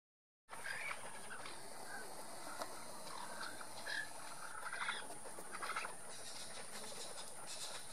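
A flock of plain chachalacas feeding together, giving scattered short calls and scratchy chatter over a steady high hiss. It starts about half a second in, after silence.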